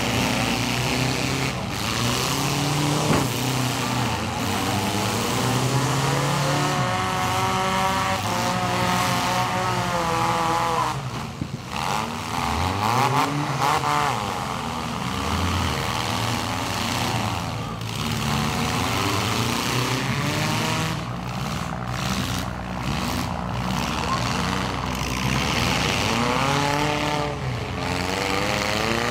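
Several compact demolition-derby cars' engines running and revving at once, their pitch rising and falling again and again as the cars accelerate and back off.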